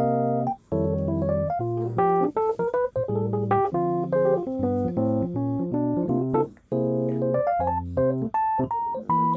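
Background music: a piano tune, a stepping melody over held chords, with a few brief breaks between phrases.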